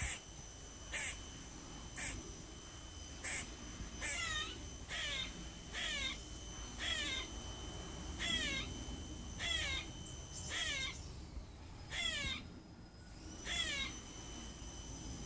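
Squirrel giving a repeated bird-like call: short, harsh chirps with a falling sweep, about one a second, about a dozen in a row with a brief pause near the end.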